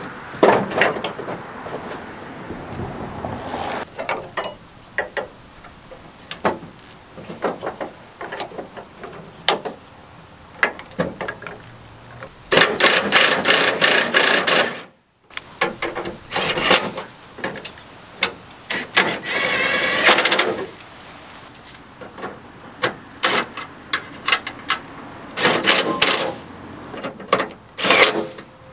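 Cordless drill/driver running in several short bursts, one of them a steady whine lasting about two seconds, between clicks and knocks of metal being handled on the truck body.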